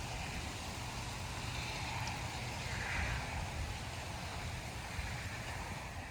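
Tropical-storm wind gusting, with a low rumble of wind buffeting the microphone and a rushing noise that swells and fades about three seconds in.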